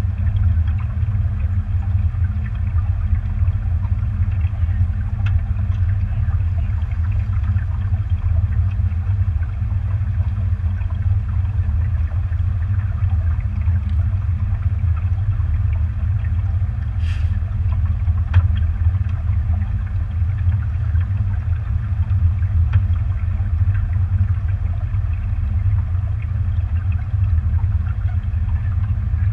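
Motorboat running under way, a steady low rumble of its engine and hull through the water.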